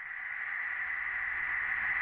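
A steady hissing noise, like static, slowly swelling louder.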